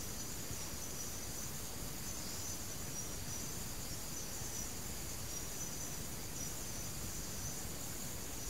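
Steady background hiss with a continuous, high-pitched, faintly flickering chirring of insects.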